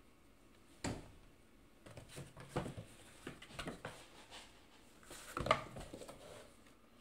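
Cardboard box knocked and scratched by cats at play: a sharp knock about a second in, then a run of scratching and rustling, with the loudest knock and scrape about five and a half seconds in.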